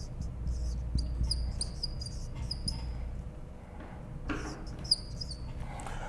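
Dry-erase marker squeaking against a whiteboard in short strokes while writing, over a low steady hum.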